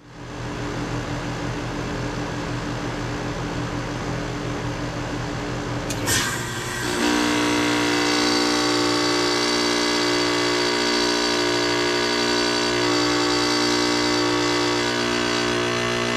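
2006 Carrier Base Series 1.5-ton heat pump outdoor unit running with a steady hum. About six seconds in it switches into defrost: a sharp click and whoosh as the reversing valve shifts, after which the compressor runs on louder with a changed, steady hum.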